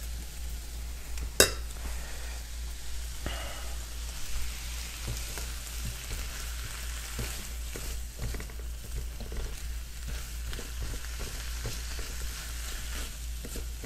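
Brussels sprouts and red pepper sizzling in a nonstick wok, stirred with a silicone spatula, with small scrapes and ticks. One sharp clack is heard about a second and a half in.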